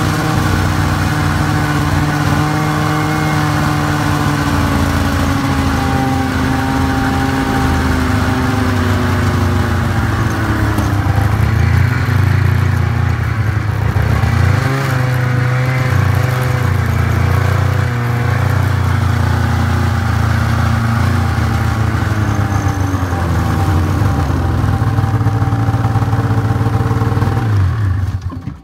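Polaris snowmobile engine running while riding, its pitch falling about ten seconds in as the sled slows, then rising and falling a little at low speed before it stops abruptly near the end.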